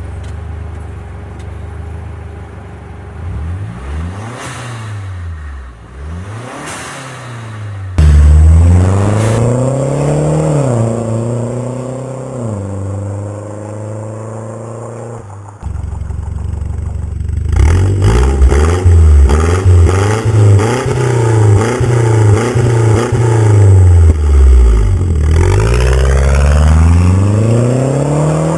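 Turbocharged four-cylinder engine of a Mazda CX-7 through a cat-back exhaust: idling, then revved twice. It then runs hard under acceleration, the pitch climbing and dropping back at each gear change, and near the end the pitch falls away as the car passes.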